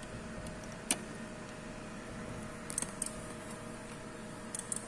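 A few light clicks and taps from hand wiring at a fire alarm panel's terminal block, as the printer cable's wires are fitted: one click about a second in, a small cluster a couple of seconds later and another near the end. A steady electrical hum runs underneath.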